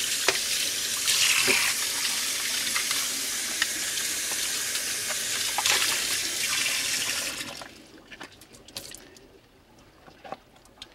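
Kitchen tap running water into a sink over a cooked crab and its shell as they are rinsed out. The water stops about two-thirds of the way through, leaving only a few faint clicks.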